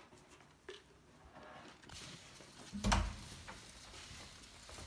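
Light scattered clicks and rustling as a ferret is handled in its harness, then a single loud thump about three seconds in, followed by faint patter of small feet on a wooden floor.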